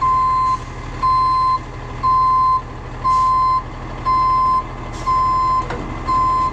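Tow truck's backup alarm beeping while it reverses, one steady beep about every second, over the low, even running of the truck's engine.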